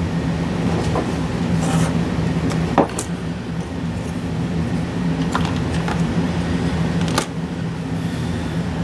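A steady low machine hum, with a few light clicks and clatters of small plastic fan parts being handled and set down, the sharpest about three seconds in and again about seven seconds in.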